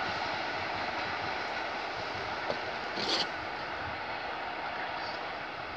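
Suburban electric multiple-unit train running away along the track, its steady rolling noise slowly fading as it recedes, with a brief hiss about three seconds in.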